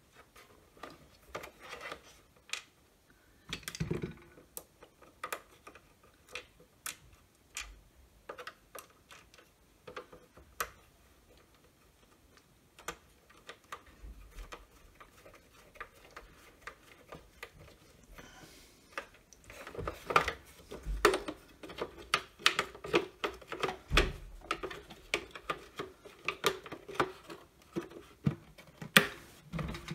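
Irregular sharp clicks, taps and rattles of the plastic housing parts of a Milwaukee M18CV hand vacuum being handled, fitted together and screwed up by hand with a small screwdriver. The clicking grows busier and louder about two-thirds of the way in.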